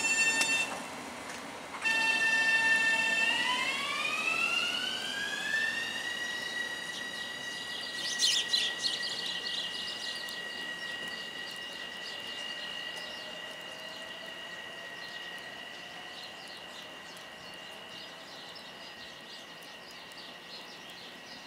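LIRR M7 electric multiple-unit train pulling away, its propulsion inverters giving a steady high whine that breaks off briefly about a second in, then slides upward in pitch and holds, fading slowly as the train recedes. A short cluster of high chirps comes about eight seconds in.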